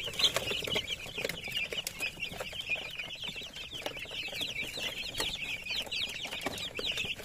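A brood of young chicken chicks, about three weeks old, peeping continuously: many short, high, falling peeps overlapping one another, with scattered light clicks.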